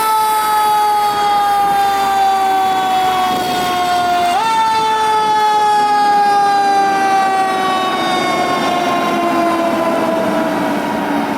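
Fire engine siren sounding a single falling wail. The pitch drops slowly, climbs quickly back up about four seconds in, then winds down slowly again.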